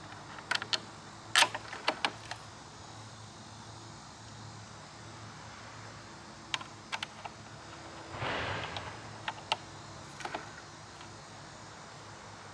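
Scattered light clicks and taps of scooter parts being handled and fitted during assembly, in small clusters, with a brief scraping rustle about eight seconds in.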